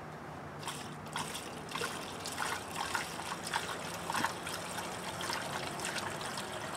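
Fresh two-stroke gas-oil mix trickling from a fuel can through a plastic funnel into the small fuel tank of an Echo PB-265L backpack blower, with many small irregular glugs.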